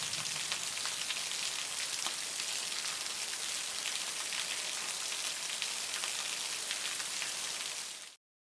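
Very heavy rain falling steadily, a dense hiss full of fine drop ticks. It fades quickly near the end and cuts off to silence.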